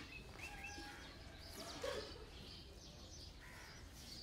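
Faint outdoor ambience with birds chirping in short calls, and one brief louder sound about two seconds in.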